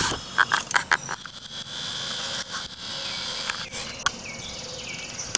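Steady high buzzing of insects in an evening chorus, with a fine rapid pulsing near the end and a few short chirps. Several sharp clicks and knocks in the first second as the camera is handled.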